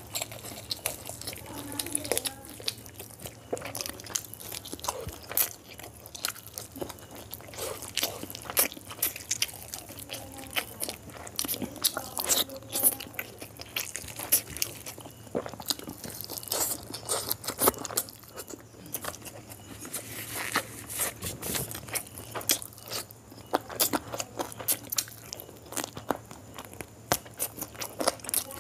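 Close-miked eating sounds: chewing chicken curry and rice, with a steady irregular run of quick wet mouth clicks and smacks.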